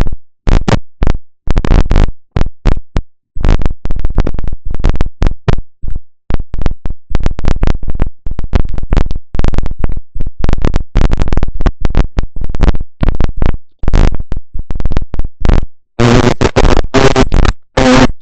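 Loud, irregular crackling static from a faulty microphone: rapid bursts of harsh noise broken by short dropouts, becoming denser and more continuous near the end.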